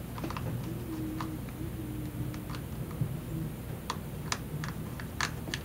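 Scattered light clicks and ticks of a small pentalobe screwdriver against the tiny screws and the phone's casing as the last two bottom screws are driven in.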